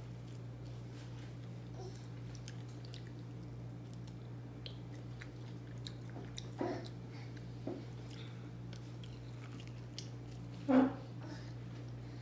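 Close-miked chewing and wet mouth clicks of a person eating, over a steady low hum. Brief voice sounds come twice around the middle, and a louder one about a second before the end.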